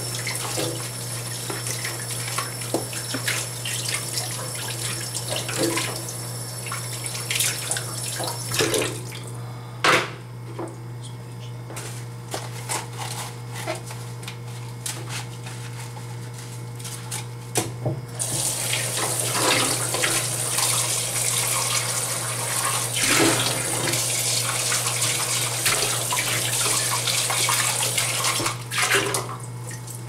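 Kitchen faucet running into a stainless steel sink while the black plastic filter basket of a Black & Decker coffee maker is rinsed and scrubbed by hand with a sponge. The water stops for several seconds in the middle, leaving scattered knocks and rubbing of the parts, then runs again. A steady low hum sits underneath.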